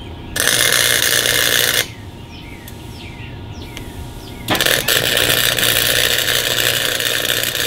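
Wire-feed welder arc crackling on steel in two runs. A short one lasts about a second and a half; a longer one starts about four and a half seconds in and runs for some three and a half seconds.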